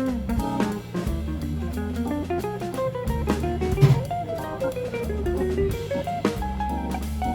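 Background music: a guitar melody with bass and a drum kit, in a jazzy style.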